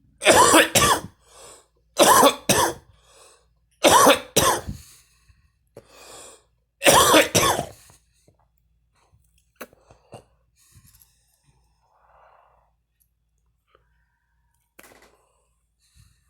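A woman coughing hard in a fit brought on by smoking: loud coughs mostly in pairs, about every two seconds, with weaker coughs between, dying away about eight seconds in. Only faint small clicks follow.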